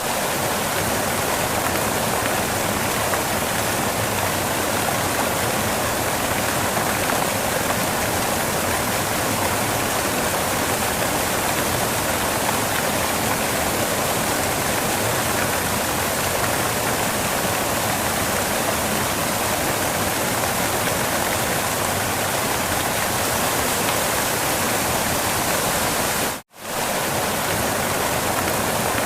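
Waterfall: a steady rush of falling water, broken by a momentary dropout to silence near the end.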